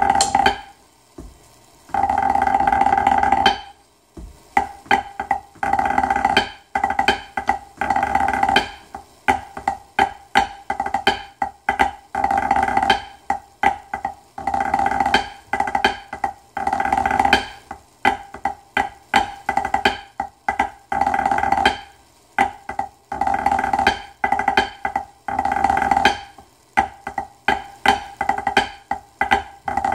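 Pipe band snare drumming played with sticks on a practice pad: two opening rolls in the first few seconds, then a 9/8 march score of rolls and quick strokes, phrase after phrase with brief breaks between.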